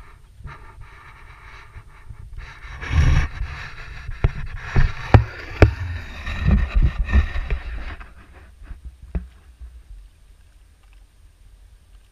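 River water sloshing and splashing against a camera held at the surface, with several sharp knocks, loudest between about three and eight seconds in, then settling to faint lapping.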